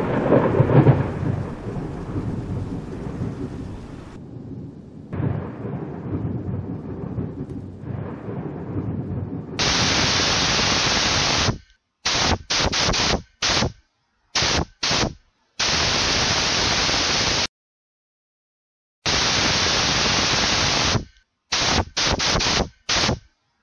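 A low rumbling noise fades over the first few seconds. From about ten seconds in, a flat, static-like hiss switches on and off abruptly in bursts of varying length, a sound effect for gas flowing from a tank through a hose into a gopher burrow.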